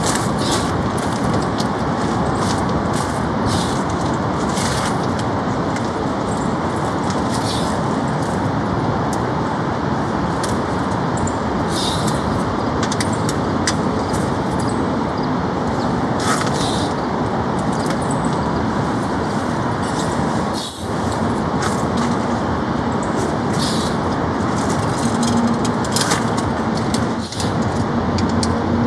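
Heavy rain beating on a poly-cotton (TC) tarp: a dense, steady hiss with sharper drip hits scattered through it, briefly dropping out twice in the second half.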